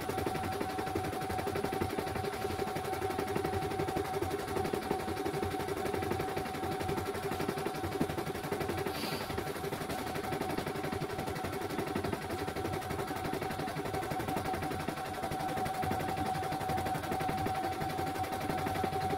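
CNY E900 embroidery machine stitching a design: a very fast, even clatter of needle strokes over a steady motor whine, played back at double speed.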